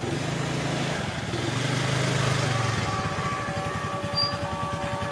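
A motor scooter's engine runs steadily, then idles with a regular low putter in the second half as the scooter pulls up and stops.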